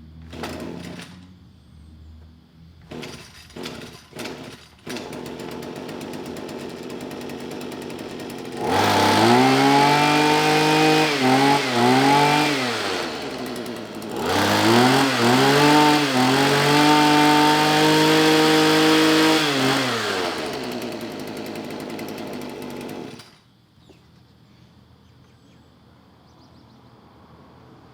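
Small petrol engine of a garden power tool pull-started after a spark plug change: a few starter-cord pulls, then it catches and idles. It is revved up and down in two long stretches, drops back to idle and cuts off suddenly near the end.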